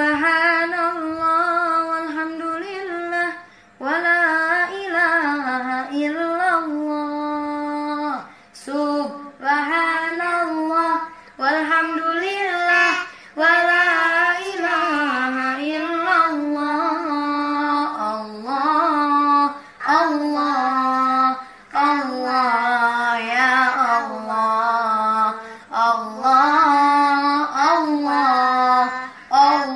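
A child reciting the Quran in a melodic chant, in phrases a few seconds long with short breaths between them. The pitch is held on long notes and then ornamented with quick wavers.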